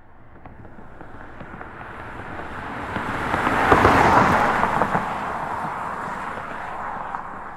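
Intro logo-reveal sound effect: a crackling swell of noise that builds to a peak about four seconds in, then fades away.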